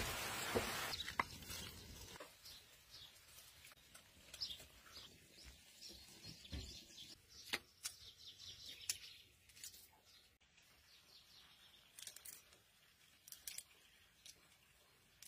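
Faint bird chirps over scattered small clicks and rustling from hands working food, snapping open fava bean pods.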